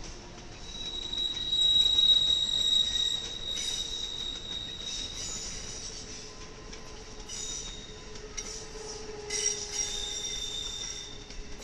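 Amtrak passenger cars rolling through a curve, their steel wheels squealing against the rail in a high, steady whine. It is loudest about two seconds in and rises again near the end.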